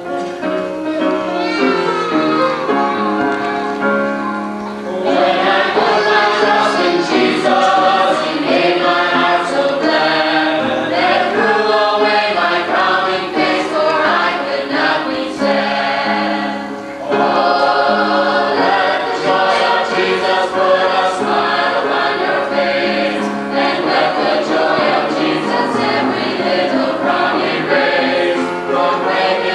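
A small ensemble of Sunday school teachers singing a Sunday school song together as a choir, the singing growing fuller about five seconds in.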